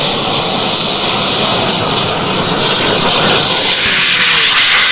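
Radio-controlled model turbine jet engine flying a low pass, a loud, steady rushing hiss that swells a little in the second half.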